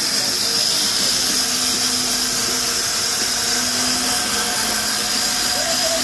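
Sawmill saw running steadily, a constant high-pitched whine over a dense, even machine hiss.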